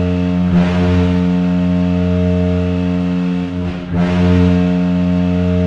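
Goal horn sounding a loud, steady, low blast, breaking briefly just before the four-second mark and then sounding again.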